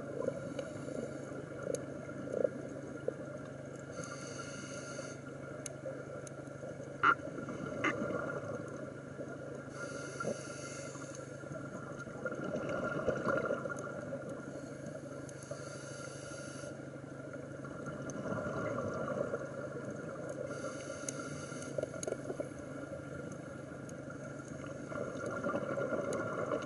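Underwater sound of a scuba diver breathing through a regulator, heard through the camera housing. A rush of exhaled bubbles comes about every five to six seconds, with slower swells between them, over a steady hum and scattered short clicks.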